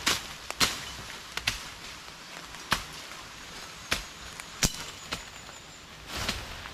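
Machetes slashing and chopping through forest undergrowth: sharp, irregular cuts about once a second, with a longer swish about six seconds in.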